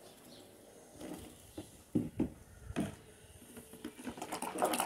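A few sharp knocks, then a long plastic spoon starting to stir thick, foamy homemade liquid soap in a plastic tub near the end, with a rapid scratchy sloshing.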